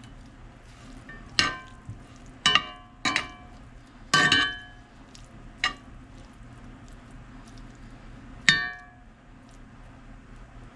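A metal utensil clanking against a pan while stirring cooked peppers and onions in bacon grease: six separate ringing clangs at uneven intervals, the last one the loudest.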